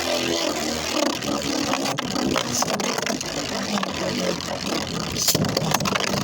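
Two Beyblade Burst spinning tops, Crash Roktavor and Inferno Salamander, whirring and grinding as they spin against each other in a plastic Hypersphere stadium, with rapid clicks of repeated hits and a sharper clash about five seconds in.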